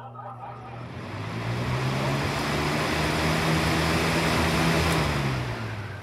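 Lasko B20304 box fan running: a loud rush of air over a low motor hum swells up about a second in, holds, then fades back near the end.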